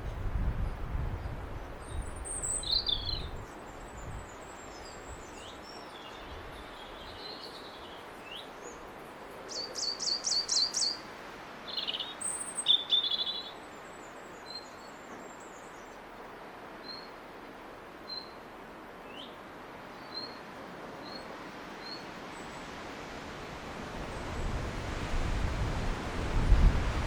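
Robin singing in scattered short, high phrases, including a quick run of about six notes around ten seconds in. A low rumble comes at the start and again near the end.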